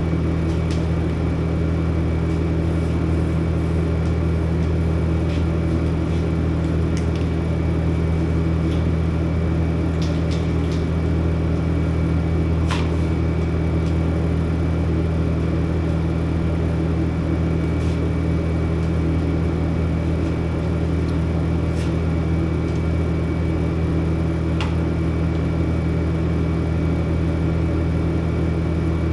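Steady machine hum with a deep, even drone and a faint high whine that does not change. A few light clicks and taps sound over it.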